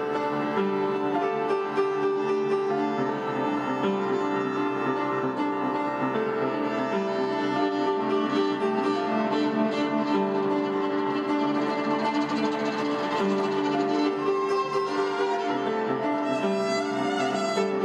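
Violin and upright piano playing a duet, the violin bowing long held notes over the piano.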